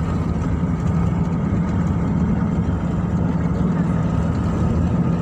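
Car driving at speed, heard from inside the cabin: steady engine, tyre and wind noise, an unbroken drone with a constant low hum.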